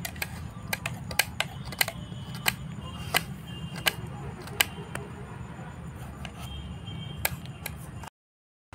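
Small kitchen knives chopping tomato and onion on plates: irregular sharp clicks of the blades striking the plates, about one or two a second, over a steady low hum.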